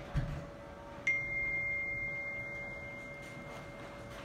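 A single clear high-pitched ring, like a struck tuning fork or chime, starting sharply about a second in and slowly fading over about three seconds, over a faint steady hum.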